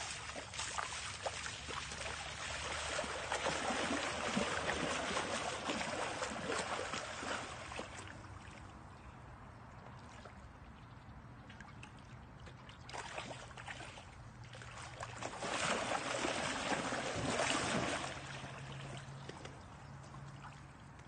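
Golden retriever wading and splashing through shallow water, the splashing louder in two spells, in the first half and again a few seconds before the end.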